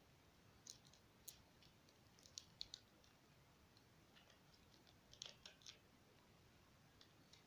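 Faint crinkles and clicks of wrapped chocolate bars being handled and set down in the box's tray, in small clusters about a second in, around two and a half seconds in and around five seconds in, with near silence between.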